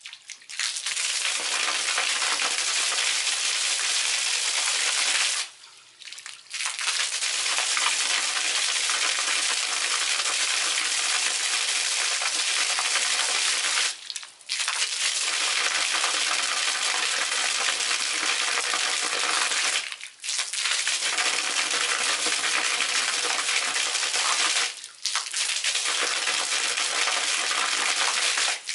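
Submersible arching fountain jet running, its stream of water spattering down as a steady crackling hiss, with four brief breaks of under a second.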